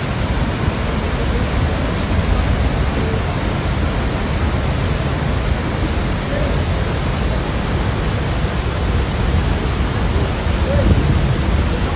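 Niagara's Horseshoe Falls up close: a loud, steady rush of falling water, heaviest in the deep low end.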